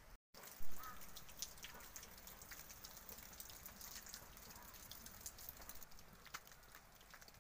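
Wet falling snow pattering on branches and ground: many scattered soft ticks over a faint hiss. There is a short dropout at the very start and a single louder bump about a second in.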